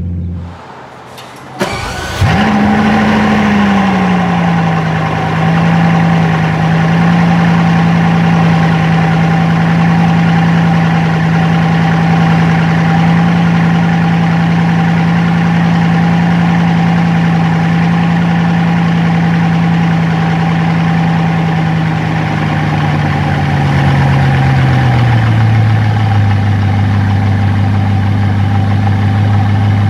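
Bugatti Chiron's 8.0-litre quad-turbocharged W16 engine starting, heard at the exhaust. It catches about two seconds in, flares briefly and settles into a steady fast idle. About 23 seconds in the idle speed drops to a lower, steady note.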